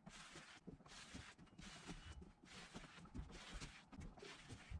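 A disposable plastic notched scraper dragging flooring adhesive across the desktop board, in faint scraping strokes a little more than one a second.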